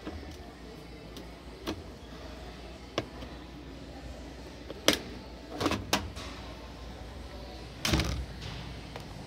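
Scattered clicks and knocks from handling a display laundry appliance while checking whether it has power, the sharpest about five seconds in and a cluster near the end, over a steady low background hum.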